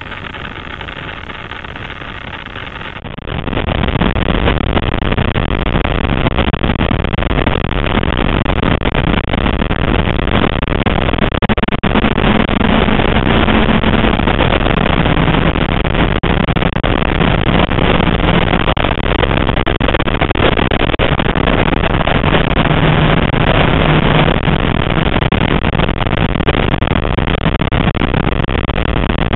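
Classic Mini Cooper race car's A-series four-cylinder engine running hard at racing speed, heard from inside the cabin along with heavy wind and road noise. The sound comes in loud about three seconds in, and a low engine note steps down in pitch a couple of times.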